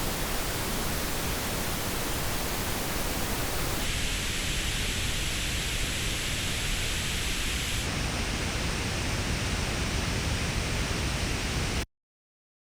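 Pink noise test signal played through earphones and picked up by an artificial ear simulator: a steady hiss in three stretches of about four seconds. The tone colour changes suddenly about four seconds in and again about eight seconds in, the middle stretch brighter in the upper mids. It cuts off sharply about a second before the end.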